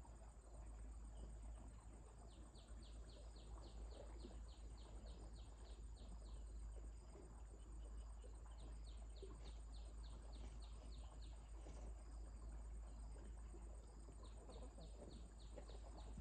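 Faint outdoor ambience. Runs of quick high chirps, about six a second, come and go three times over a steady thin high tone and a low rumble.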